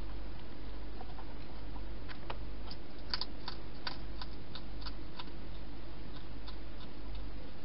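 Wild hedgehog eating from a dish inside a plastic feeding box: a run of quick, irregular clicking chews, thickest in the middle and thinning out near the end, over a steady low hum.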